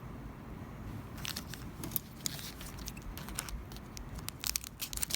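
Trading-card pack wrapper being torn open and crinkled, a run of crackling rustles starting about a second in.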